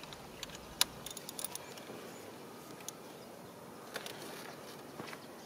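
Faint, scattered clicks and light metal taps from hand tools being handled during spark plug and ignition coil work, with a small cluster of them about a second in.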